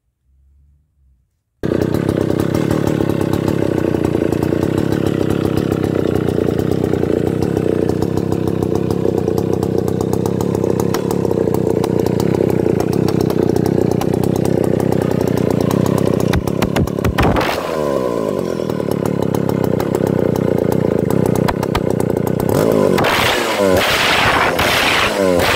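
Stihl 051 AV two-stroke chainsaw engine, coming in abruptly about a second and a half in and then idling steadily. Around the middle its speed briefly wavers, and near the end it is revved in several short bursts.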